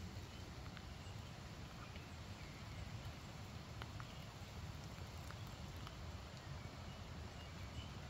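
Faint rain ambience: scattered drips and light patter of rain over a steady low rumble.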